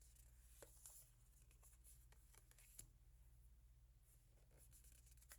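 Faint handling of oracle cards: light scattered clicks and rustles as the cards are slid and set down, over a low steady hum.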